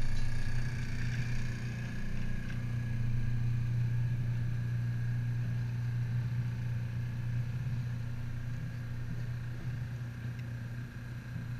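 Pickup truck rolling slowly across a dirt lot, heard from its bed: a steady low drone of engine and running gear.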